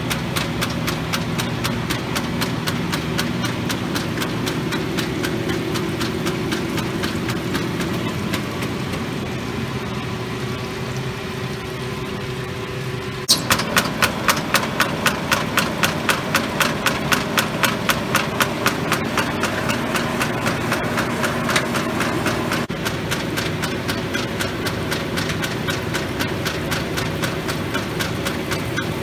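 1943 Arter A3-16 rotary surface grinder running under power, belt and gear-box driven, with a steady hum and a fast regular ticking. About halfway through, a sharper, louder pulse starts at about two to three beats a second, then fades back into the steady running.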